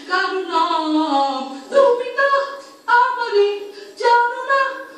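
A young man singing solo without accompaniment, in phrases of held notes that slide in pitch, with brief breaks for breath about every second. Heard thinly through a television's speaker, with no bass.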